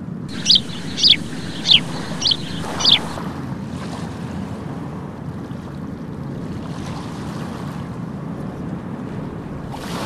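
Five short, shrill gull calls, each falling in pitch, about half a second apart in the first three seconds, over the steady wash of surf breaking on the beach with wind on the microphone.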